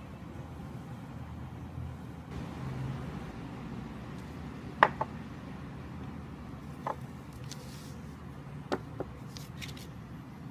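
A few sharp clicks and taps of glass nail polish bottles being handled and set down on a tabletop, the loudest about halfway through, over a steady low rumble.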